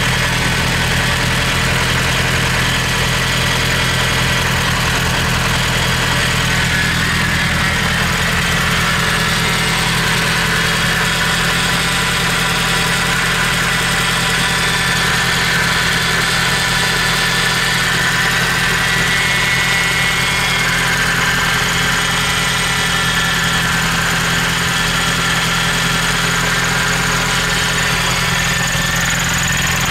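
Nissan FJ20ET 2.0-litre turbocharged DOHC four-cylinder engine idling steadily.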